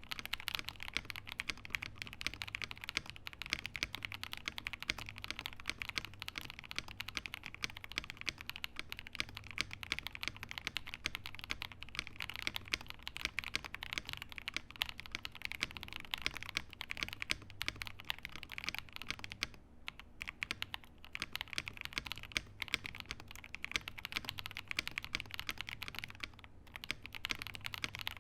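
Continuous typing on a computer keyboard: a dense, quick run of key clicks with a couple of brief pauses late on, recorded on an Audio-Technica AT2020 condenser microphone.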